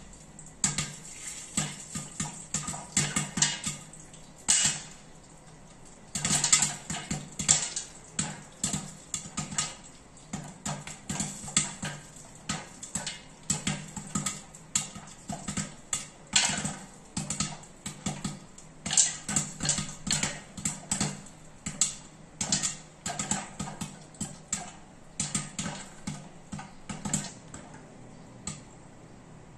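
Popcorn kernels popping in hot oil inside a covered stainless steel pot with a glass lid: a rapid, irregular run of sharp pops, some coming in quick clusters.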